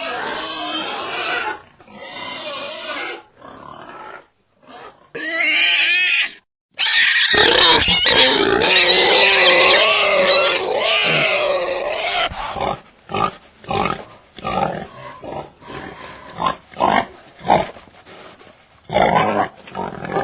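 Wild boar vocalising across several spliced recordings: grunting, a loud stretch of high, wavering squeals in the middle, then a run of short separate grunts near the end.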